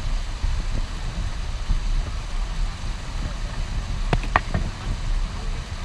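White water rushing over a river weir around a folding kayak's bow, a steady churning noise with a heavy low rumble. A quick cluster of sharp clicks comes a little past four seconds in.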